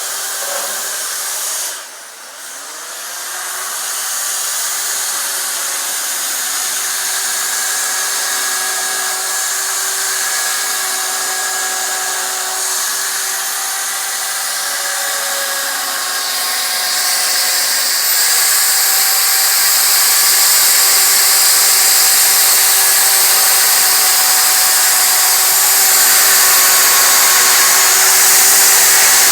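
Chainsaw running steadily as it cuts wood for a carving. About two seconds in it briefly eases off, then climbs back up in pitch, and it grows louder and hissier in the second half.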